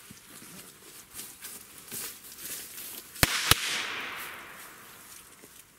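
P1 firecracker exploding: two sharp bangs close together, about a quarter second apart, followed by a rolling echo that fades away over a couple of seconds.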